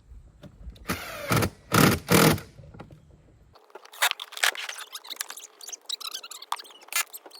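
Handling noise from assembling a plastic kids' ride-on excavator: three loud scraping, rattling bursts of parts being moved and fitted, then a softer run of small clicks and rattles.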